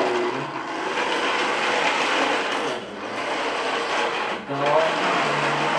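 Electric motor and gears of a battery-powered RC toy truck whirring steadily as it drives, dipping briefly twice.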